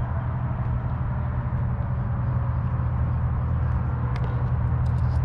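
Steady low rumble of distant road traffic, with no single vehicle standing out.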